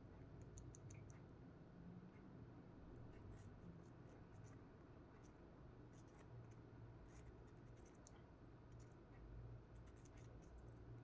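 Faint scattered clicks and scratches from a cockatiel nibbling at apple, over a low steady room hum.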